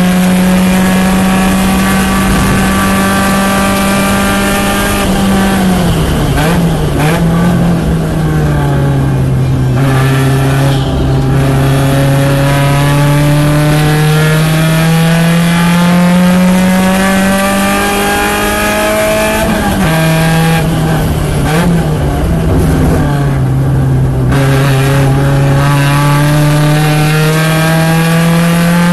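Porsche 944 race car's four-cylinder engine running hard at high revs. Twice, about five and twenty seconds in, the revs drop with quick throttle blips on the downshifts for a braking zone. Each time the engine then pulls back up steadily under full throttle.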